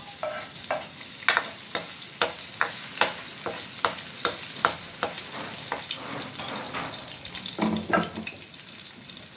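Chopped ginger sizzling in hot cooking oil in a wok, with a ladle scraping and knocking against the wok about two or three times a second as it is stirred.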